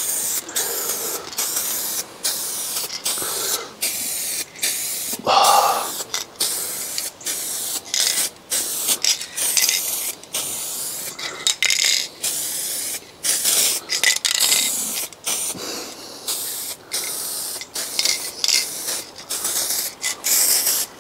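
Aerosol spray can of car paint hissing in short bursts with brief breaks between them as the can nears empty.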